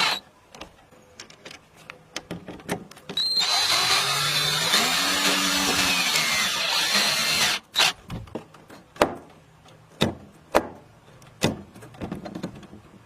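A power drill runs for about four seconds, its pitch rising and falling as it works, with scattered clicks and knocks before and after.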